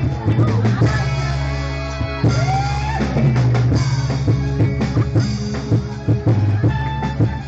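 Loud live dangdut band music with a steady drum-kit beat.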